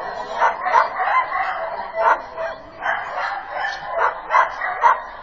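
A dog barking repeatedly in short, irregular barks, several in quick succession.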